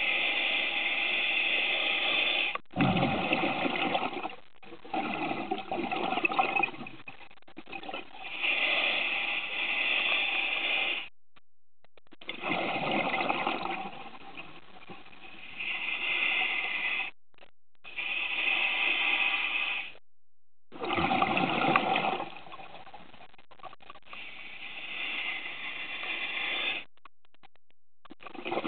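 Scuba diver breathing through a regulator underwater: repeated breaths, each a gush of exhaled bubbles lasting two to three seconds, with short pauses between them.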